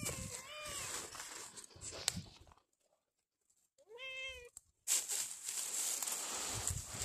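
A long-haired grey domestic cat meowing twice: a short meow about half a second in and a longer, clearer meow that rises and falls about four seconds in.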